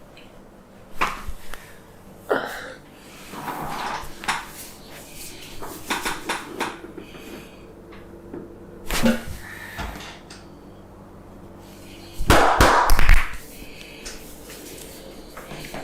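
A barber's hands slapping, tapping and rubbing during a head massage: scattered sharp smacks, with a louder burst of rapid strikes about twelve seconds in.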